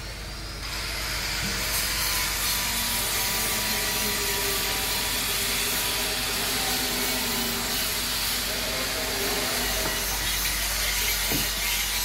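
Steady grinding, rasping noise of a power tool working stone, setting in about a second in, with a single knock near the end.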